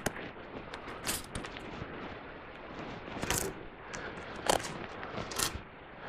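A handful of sharp, irregular clicks and knocks as the steel lift frame and its cables are handled, about four clear ones spread across a few seconds over a low outdoor background.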